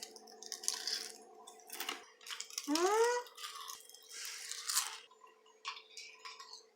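Thin, crisp baked potato snack crackers being bitten and chewed, giving a run of short crunches. About three seconds in, a short rising "hmm" from the taster.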